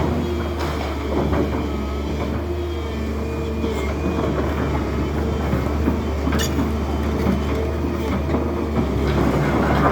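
Heavy demolition machinery running steadily, with scattered metal knocks and scraping and one sharp clang about six seconds in.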